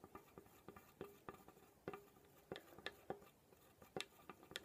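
Wooden stick stirring white glue and warm water in a small plastic cup: faint, irregular clicks and taps of the stick against the cup.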